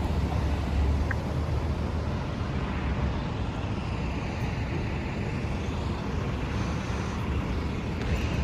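Street traffic noise: a steady rumble of vehicles passing by, with no distinct single event standing out.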